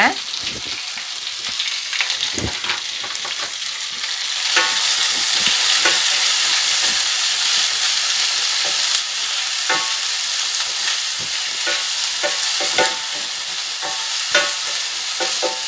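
Sliced onions and green chilli sizzling in hot oil in a stainless steel pan, stirred with a utensil that scrapes and taps the metal, some taps ringing briefly. The sizzle grows louder about four seconds in.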